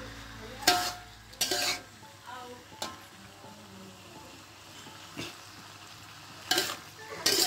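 Metal spatula scraping through melinjo skins in a wok as they are stir-fried, in a handful of separate strokes with a quieter stretch mid-way. A faint frying sizzle lies underneath.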